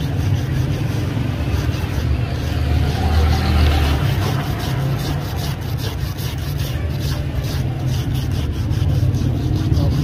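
A wooden stick rubbed back and forth across a rusty antique padlock to scour off the rust, about two to three strokes a second, clearest in the second half. A steady low rumble runs beneath it.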